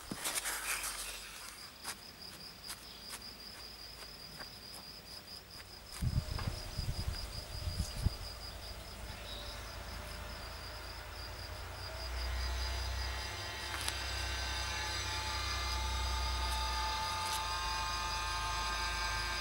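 An insect trilling steadily in a fast, even pulse at a high pitch for the first half. There are a few low knocks around six to eight seconds in. From about twelve seconds in, a low rumble with a steady hum rises.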